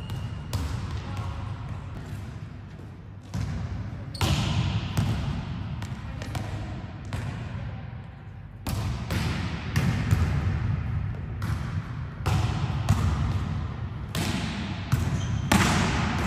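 Volleyballs being hit and bouncing on a sports-hall floor: a string of sharp smacks at uneven intervals, each echoing in the hall.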